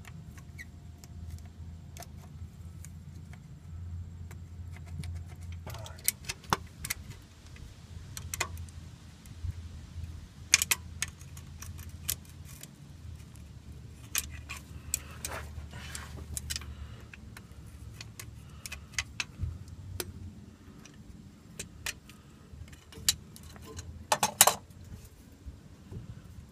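Scattered metal clinks and scrapes of a screwdriver and pickup magnet working among the gears of a Ford 8.8 rear differential, fishing out an axle C-clip. A low steady hum runs underneath.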